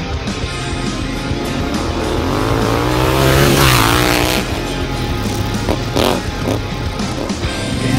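Yamaha XSR700's parallel-twin engine revving hard as the motorcycle comes up and passes close by. Its pitch climbs to a peak about halfway through, then drops away as it goes past.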